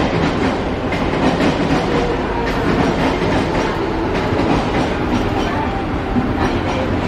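Twin WDM-3A ALCO diesel-electric locomotives, with 16-cylinder ALCO 251 engines, chugging steadily as they haul a passenger train in at walking pace. Their wheels click over the rail joints.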